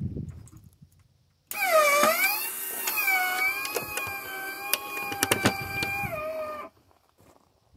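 Homemade Griswold crossing gate mechanism's electric motor running for about five seconds as it drives the gate: a whine that dips in pitch as it starts, then holds steady before cutting off suddenly, with a few sharp clicks along the way.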